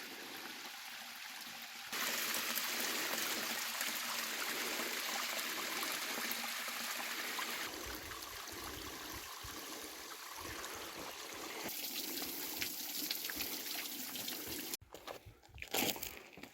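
Rushing river water, a steady hiss of flowing water. It gets louder about two seconds in, shifts in character a couple of times, and cuts off abruptly near the end, followed by a few clicks.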